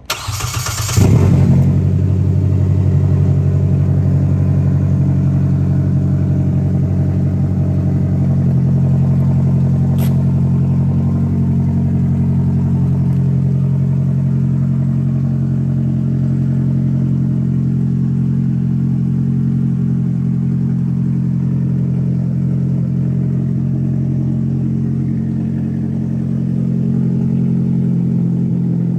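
2022 Polaris Slingshot S's 2.0-litre four-cylinder ProStar engine started with the push button: the starter cranks briefly, the engine catches about a second in and settles into a steady idle.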